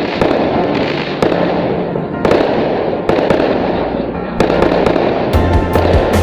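Aerial fireworks bursting overhead: a continuous crackle with many sharp bangs at irregular spacing, coming thicker about five seconds in. A deep steady drone joins at the same point.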